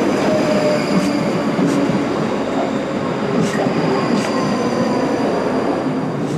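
ScotRail electric multiple-unit train running along the platform close by: a loud steady rumble of wheels on rail with a faint steady high whine and a few sharp clicks from the wheels.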